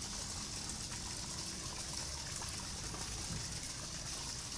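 Steady rushing and trickling water at an elephant's muddy pool, under a constant high hiss.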